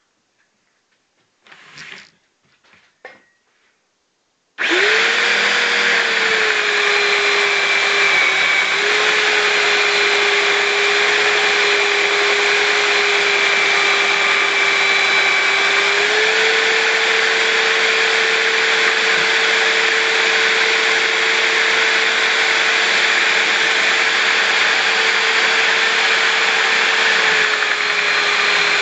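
A few light knocks, then an Einhell RT-BS 75 belt sander, mounted in a homemade sanding table, is switched on about four and a half seconds in and runs steadily with a motor whine that shifts slightly in pitch a couple of times, while a strip of wood is held against the belt and sanded.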